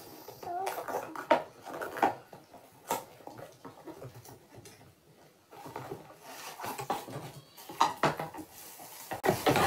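Hands rummaging inside a cardboard shipping box, with items and packaging rustling and knocking in scattered short clatters. There is a lull around the middle, and the knocks grow louder again near the end.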